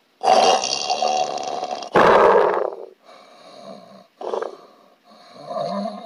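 Heavy snoring from a sleeper whose tongue nearly blocks the airway, so that breathing barely gets through: a long harsh snore, then a louder one about two seconds in, followed by weaker strained breaths. It is the dangerous stage of obstructive snoring, with the airway narrowed and apnea setting in.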